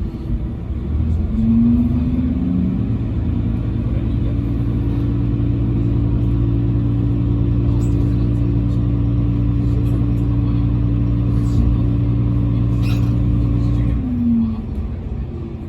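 KiHa 120 diesel railcar's engine revving up, holding a steady note under power, then dropping back about fourteen seconds in as the throttle is eased.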